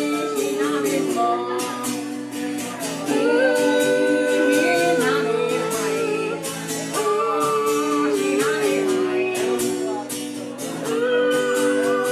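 Music: strummed guitar with a long-held, sliding melody line over it.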